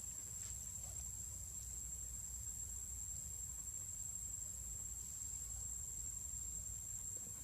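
Insects shrilling in one steady, unbroken high tone, over a low rumble.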